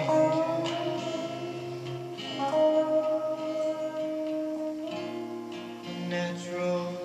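Acoustic guitar strumming chords under an electric guitar playing a lead line of long held notes. One note slowly rises in pitch over the first two seconds.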